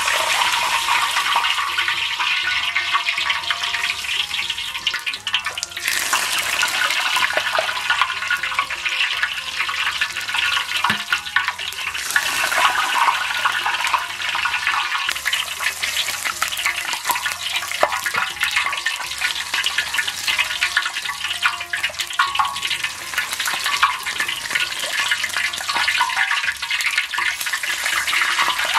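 Hot oil ladled over a pork hock, sizzling and crackling on the skin as it browns, and streaming off the meat back into the wok.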